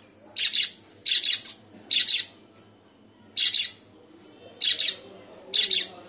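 Pet cage bird calling: six short, loud, high-pitched calls, each about a third of a second long, repeated at uneven intervals.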